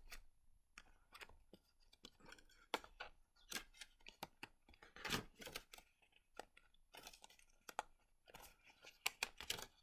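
Faint rustling and crinkling of thick patterned paper pages and tags in a handmade junk journal being turned and handled, in short scattered crackles and flaps, a few louder about halfway through and near the end.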